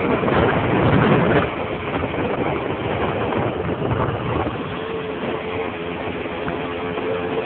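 Simson moped's two-stroke engine running under way, mixed with wind and road noise. It eases down about a second and a half in, and from about five seconds in a steady engine note comes through.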